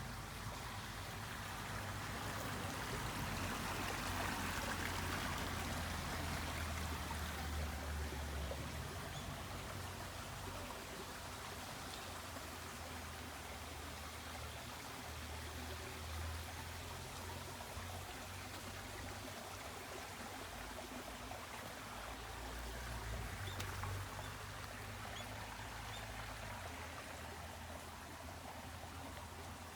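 Water of a Japanese garden stream flowing steadily over its bed, a continuous babble that is a little fuller in the first several seconds, with a low rumble coming and going underneath.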